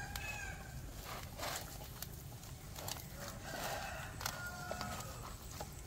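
Faint background of chicken and bird calls: short, thin high tones here and there, with a few sharp clicks and knocks scattered through.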